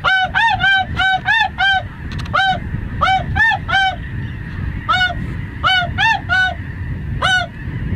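Geese honking: about fifteen short, clear honks, each rising and falling in pitch, coming in quick clusters, over a steady low rumble.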